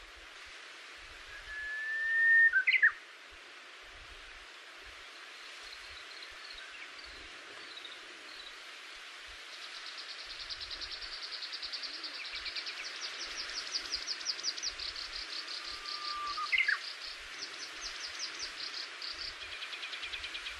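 Wild birds singing over a steady background hiss. Twice, about 14 seconds apart, a loud call sounds: a held whistled note that ends in a sharp upward and downward flick. From about ten seconds in, a fast high trill runs for around nine seconds.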